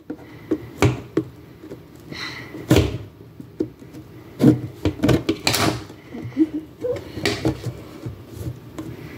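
Scissors cutting the seal of a cardboard box, then the box being handled and opened: a run of snips, scrapes and light knocks.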